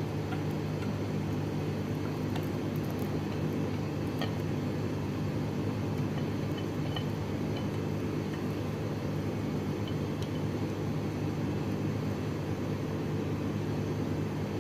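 Steady low mechanical hum from a running fan or appliance, with a few faint clicks.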